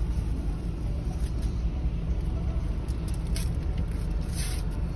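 Steady low rumble of a car's engine idling, heard from inside the cabin, with a couple of faint rustles of tissue or a paper wrapper near the end.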